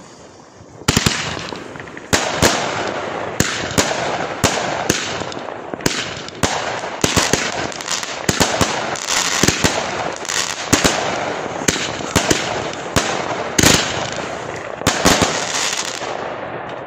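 Fireworks launching and bursting one after another, with dozens of sharp bangs in quick succession over a dense hiss. They start about a second in and stop shortly before the end.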